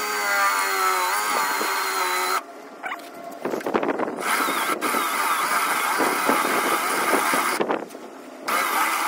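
Cordless drill boring a hole through a welded metal support bar: the motor whines, and the bit grinds and chatters as it cuts. The drill stops briefly twice and starts again.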